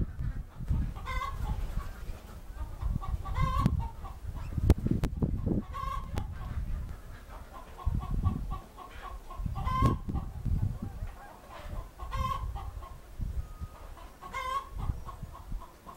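Chickens clucking, short repeated calls every second or two, with a low rumble swelling and fading underneath.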